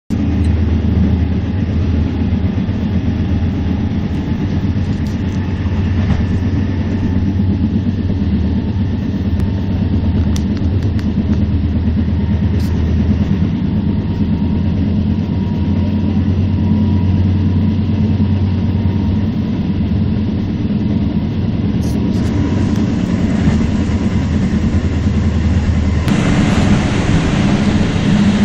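Steady low rumble and hum of a train in motion, heard from inside the carriage. The rushing noise grows louder and brighter near the end.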